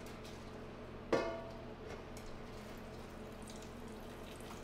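A single sharp metallic clink about a second in, ringing out briefly, as kitchen metalware is knocked together. A faint steady low hum runs underneath.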